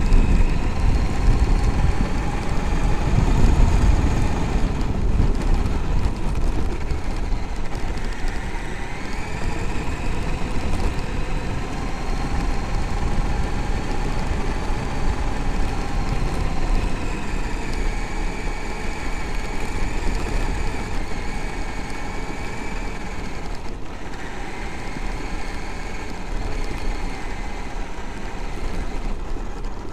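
Traxxas X-Maxx electric RC monster truck driving on gravel, heard from on board: the motor and drivetrain whine glides slowly up and down in pitch with speed, over a steady rumble of tyres on the gravel.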